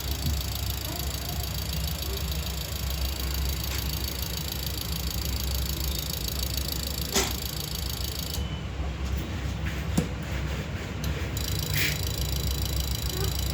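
Mahindra Bolero BS4 engine idling steadily, running on its freshly repaired 17C55 ECM, with two sharp clicks about 7 and 10 seconds in.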